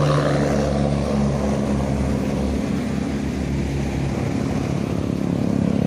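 Bus diesel engine running with a steady low drone, dipping slightly in the middle and swelling again near the end.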